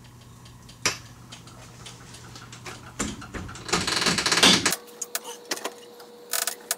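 Ratchet wrench working a fastener on a UTV's rear suspension. A single sharp clank about a second in, then a burst of rapid ratchet clicking for about a second and a half, and a few scattered clicks near the end.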